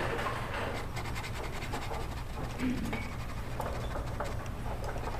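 A paintbrush scratching across canvas in many quick strokes, laying on oil paint.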